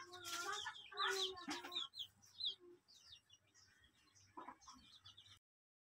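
Faint chickens: many short, high chirps falling in pitch, with a few lower calls in the first two seconds. The sound cuts off suddenly about five seconds in.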